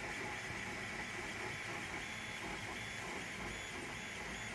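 Balco 3D printer running mid-print, its stepper motors driving the bed and print head, under a steady high whine.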